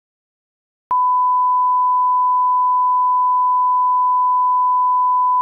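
Broadcast line-up test tone (bars and tone): a single loud, steady, pure beep that starts about a second in after silence and holds one pitch.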